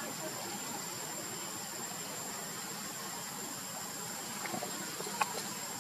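Steady outdoor background hiss with a thin, high, constant tone running through it, broken by a single short click about five seconds in.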